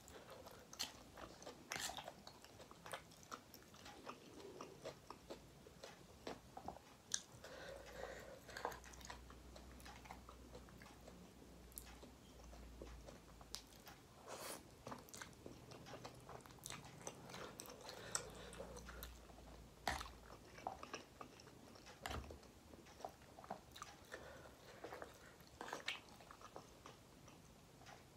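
Close-up mouth sounds of eating instant carbonara noodles: wet chewing and slurping, with scattered sharp clicks as the fork hits the bowl.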